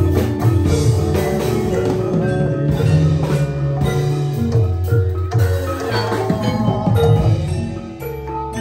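Gamelan music: struck metal mallet instruments ringing in a steady, repeating pattern over a drum beat, accompanying dancing.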